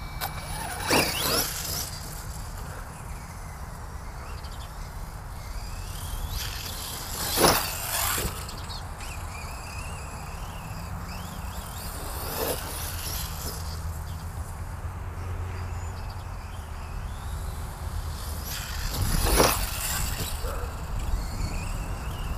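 Electric RC buggy (ZD Racing DBX-10) whirring in throttle bursts as it drives across grass, with about four louder rushes spread through and a steady low rumble underneath, its rear differential freshly refilled with 30k oil.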